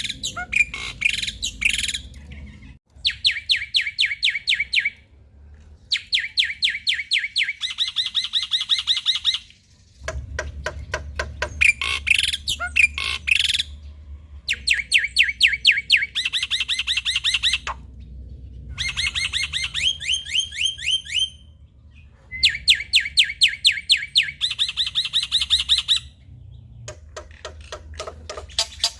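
Male black-winged myna (jalak putih) in full song, giving loud rattling phrases of rapid, evenly repeated notes. Each phrase lasts two to three seconds, with short pauses between them.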